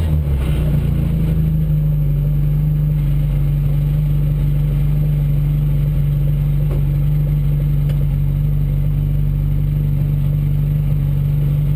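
Car engine running steadily at low revs, holding one constant low pitch, as the car rolls slowly along.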